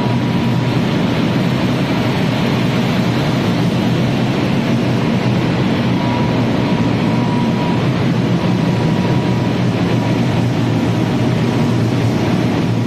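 Corn flakes processing line machinery running: a loud, steady hum and rumble of motors and vibrating conveyors carrying the flakes.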